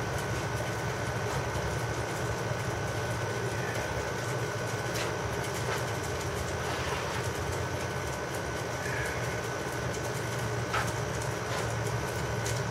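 Steady mechanical hum with a constant faint high whine, and a couple of faint light clicks.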